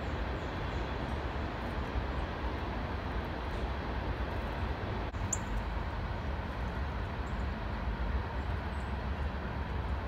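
Steady low outdoor rumble and hiss, with a few faint, short bird chirps above it; the clearest chirp comes about five seconds in.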